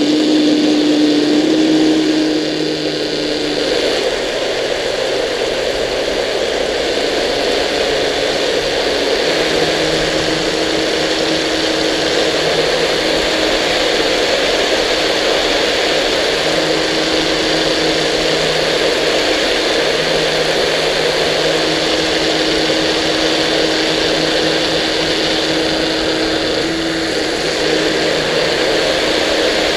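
Fast electric RC boat running on the water, heard from the hull: a steady electric-motor and propeller whine over the rush of water and spray. The boat is on a slow first run, and the whine drops out and comes back a few times.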